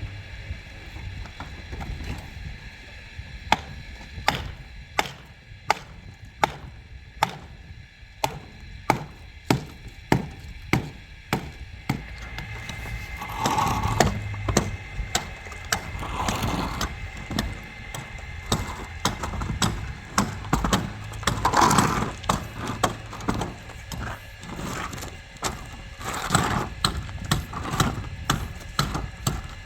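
Repeated blows striking wood, sharp and evenly paced at about one to two a second, with a few longer, louder noisy sounds in between from about halfway through.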